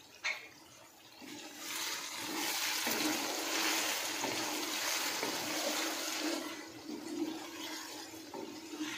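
Potato, capsicum and mince curry sizzling in a wok as it is stirred with a wooden spatula. A short knock comes at the start, the sizzle swells about a second and a half in, and it dies down near the end.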